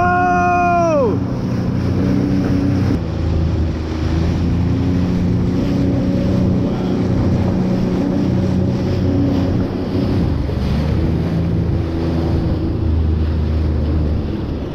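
Sea-Doo GTX jet ski running at speed over open sea, its engine a steady low drone under wind buffeting the microphone and the hiss of spray off the hull. In the first second a short pitched cry rises and falls.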